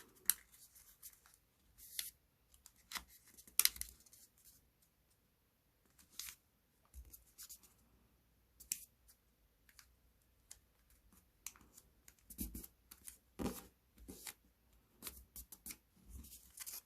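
A sheet of colored origami paper being folded by hand: irregular rustles and short, sharp crease strokes as the folds are pressed flat, with a brief pause about five seconds in.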